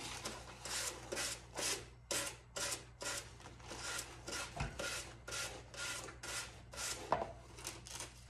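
Sanding block rasping in quick, even downward strokes, a little over two a second, along the edge of a wooden board, trimming off the overhanging decoupage paper, with one dull knock about halfway through.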